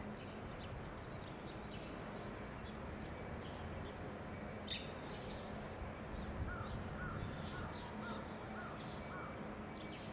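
Outdoor ambience with birds calling: scattered short chirps, then a run of six short, arched calls about two a second in the second half, over a steady background hum.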